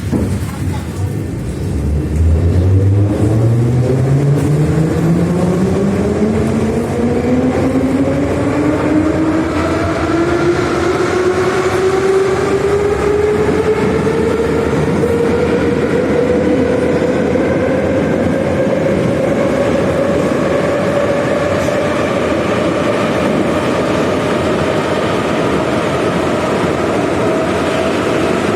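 Moscow metro 81-717.5M/714.5M "Nomernoy" train accelerating away from a station. The traction motor and gear whine rises steadily in pitch over a rumble of wheels on track, then levels off near the end as the train reaches running speed.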